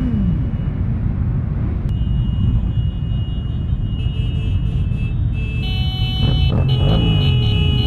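Motorcycle engines running in a slow-moving pack, a dense low rumble, with engines revving up and down several times near the end.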